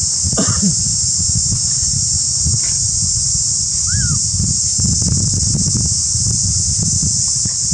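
Insects buzzing in a steady, high-pitched drone over a continuous low rumble. A short pitched call sounds about half a second in, and a brief arching whistle around four seconds.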